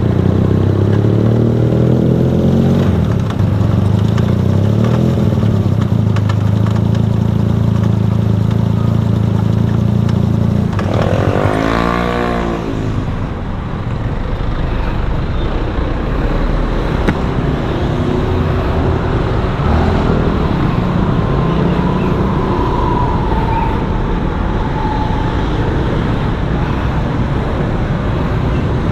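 A road vehicle's engine running steadily while under way in traffic, with a sweeping rise and fall in pitch about twelve seconds in, then mostly road and traffic noise.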